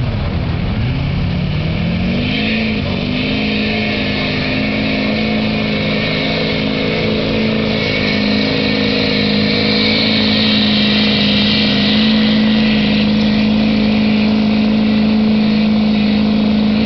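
Duramax turbo-diesel V8 in a pickup revving up over the first few seconds, then held at a steady high rpm under load while pulling a sled, with a hiss over the engine.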